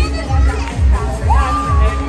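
Upbeat dance-party music played over loudspeakers, with a heavy, steady beat about twice a second. A voice holds a high note in the second half, over crowd noise.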